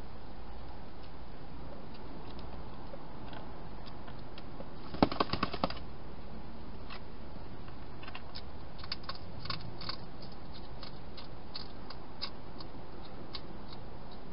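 A wild hedgehog eating inside a plastic feeding box: a quick run of sharp clicks about five seconds in, then scattered lighter clicks, over a steady hiss.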